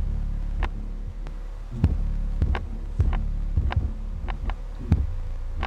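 12-inch Infinity Reference subwoofer playing a steady deep bass test tone at about 200 watts, with a dozen or so sharp knocks at uneven intervals over it. The tester hears the driver as 'punching', a sign it is near its limit.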